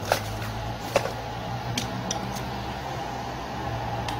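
A few light clicks and taps as a chainsaw is handled on a workbench and a screwdriver is set to its top cover screws, over a steady mechanical hum.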